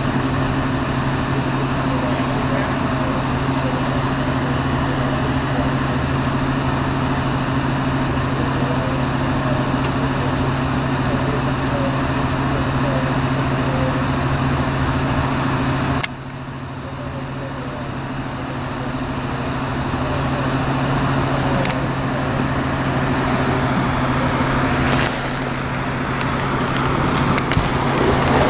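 A vehicle engine idling close by, a steady low hum over street noise, with faint voices in the background. The noise drops suddenly a little over halfway through, then slowly builds again.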